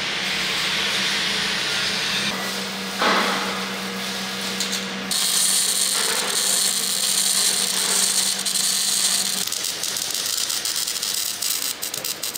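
Machine-shop noise with a steady hum and a loud knock about three seconds in. From about five seconds, the dense crackling hiss of MIG welding on steel.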